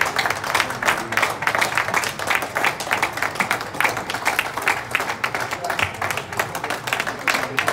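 Audience applauding, many hands clapping steadily, with voices talking over it.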